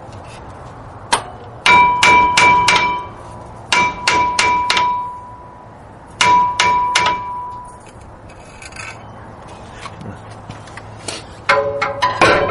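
Hammer blows on a brake disc rotor that is rusted onto the hub, coming in quick bursts of three to five strikes, each leaving a ringing tone. A faster run of strikes with a lower ring starts near the end.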